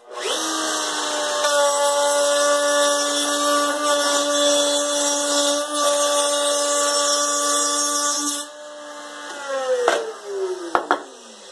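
Wood router mounted in a router table starting up and running with a steady whine. From about a second and a half in, the bit cuts through wood, adding a loud hiss for about seven seconds. Then the router is switched off and the motor winds down in falling pitch, with a few knocks near the end.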